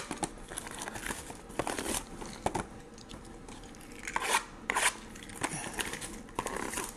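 Plastic shrink wrap crinkling and tearing in irregular bursts as it is cut and peeled off sealed trading-card boxes.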